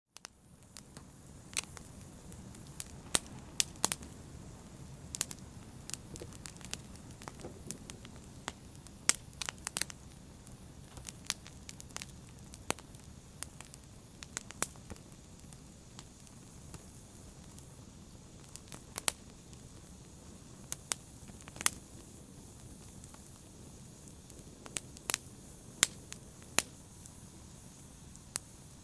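Wood fire burning in a fireplace: sharp, irregular crackles and pops over a low, steady rumble and hiss of the flames.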